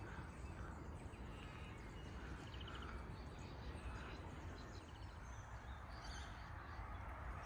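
Several birds chirping and calling, with repeated short notes and a brief trill about two and a half seconds in, over a steady low rumble of outdoor background noise.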